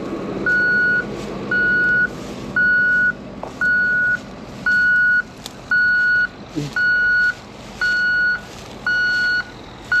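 Dump truck's reversing alarm beeping about once a second, each beep about half a second long at one steady pitch, as the truck backs toward the bogged bulldozer. A diesel engine runs low underneath.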